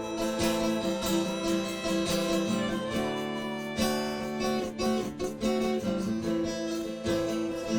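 Live band playing an instrumental passage with strummed acoustic guitar chords.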